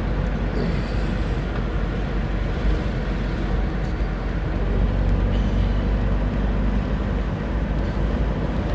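Car engine and road noise heard from inside the cabin while driving: a steady low rumble with a faint engine hum.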